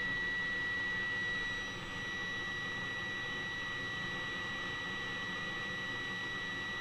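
Steady high test tone with hiss from a NordMende Elektra 58 valve radio's speaker, as the set receives a signal generator's modulated test signal at 1480 kHz during AM alignment. The level drops slightly a little under two seconds in and then holds.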